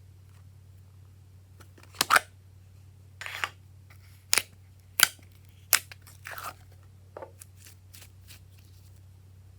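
Glossy slime being squeezed and poked by hand, giving about eight sharp pops and crackles at irregular intervals over a steady low hum.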